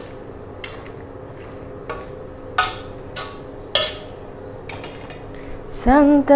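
A metal spatula knocking and scraping against a steel cooking pan of goat stew, giving about six sharp clinks a second or so apart over a steady low hum. A voice starts near the end.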